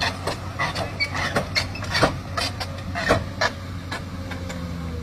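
An engine running steadily, with a quick, irregular series of sharp clicks and knocks over it for the first three and a half seconds or so, the loudest about two and three seconds in.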